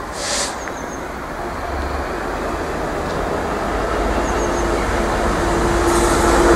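Class 66 diesel-electric freight locomotive, with its EMD two-stroke diesel engine, approaching with a loaded train and growing steadily louder as it nears. A short hiss comes just after the start, and a steady tone joins about four seconds in.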